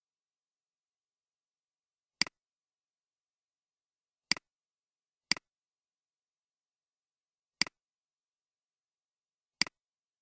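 Computer mouse clicking: five short, sharp clicks at uneven intervals of one to two seconds, with dead silence between.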